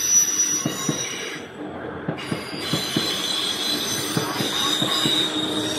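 Wheels of an East Midlands Railway diesel multiple unit squealing on the rails as it moves off, a high-pitched squeal that breaks off briefly about two seconds in, over the clicking of wheels over the rail joints.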